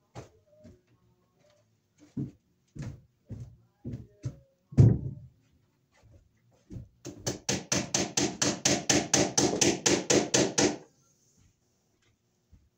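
Hammer driving cable staples into a wooden joist: scattered knocks, the loudest about five seconds in, then a quick run of about twenty light taps, some six a second, lasting nearly four seconds.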